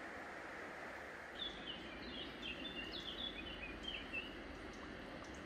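A songbird sings a quick run of short, high chirping notes for about three seconds over the steady rush of flowing river water.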